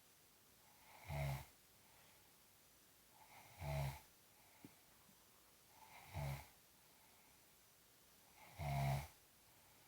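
Snoring in a steady rhythm: four snores about two and a half seconds apart, each about half a second long, with quiet in between.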